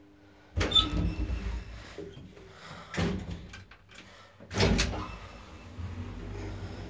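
Elevator doors of a 1976 Valmet-Schlieren traction elevator banging shut: three heavy knocks, the first and last loudest, each followed by a brief rumble. A steady low hum follows.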